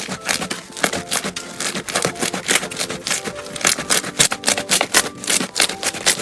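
Slime being squeezed and worked by hand, giving rapid, irregular clicking and popping sounds, many a second.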